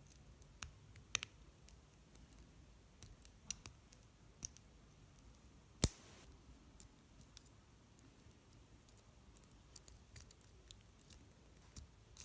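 Lock pick working the pin stack of an American Series 5300 padlock under tension: faint scattered ticks of the pick against the pins, with one much louder sharp click about six seconds in.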